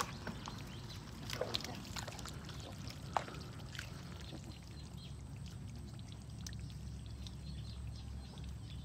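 Water pouring and splashing, with a few sharp splashes or clicks in the first few seconds, over a steady low rumble.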